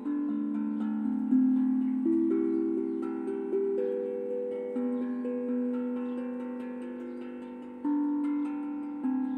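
A tuned melodic drum played slowly: single pitched notes struck every second or two, each left to ring and fade so they overlap into a gentle, meditative melody.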